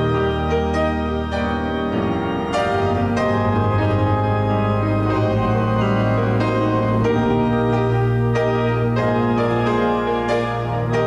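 Slow instrumental keyboard music, organ or piano, playing chords over long-held bass notes.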